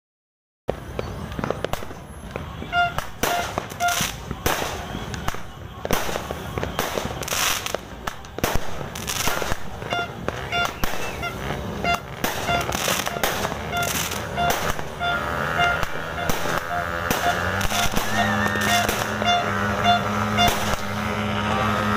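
A 16-shot consumer fireworks cake firing: a rapid string of sharp shots and bursts that starts just under a second in and runs on for about twenty seconds.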